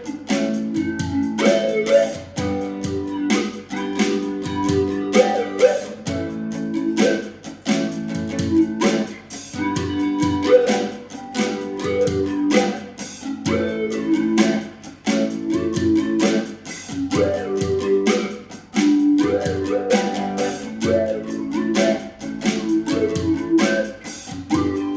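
Guitar music: strummed chords repeating in a steady rhythm.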